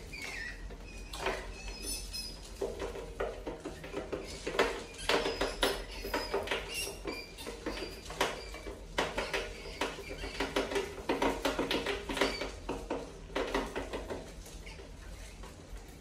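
Many rats scrabbling and clattering against the wire mesh and plastic of a water-bottle trap, with short high squeaks now and then.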